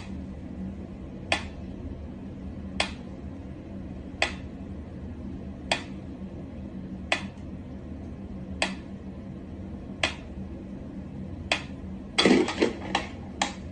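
Sharp light taps on something hard, coming evenly about once every second and a half, then a quick flurry of several taps near the end, over a low steady hum.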